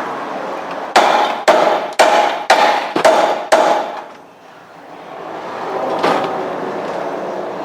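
Six hammer blows on metal, about two a second, each ringing briefly, then one lighter knock near the end: a hammer on a ball-joint splitter, breaking the taper of the car's front lower suspension arm ball joint.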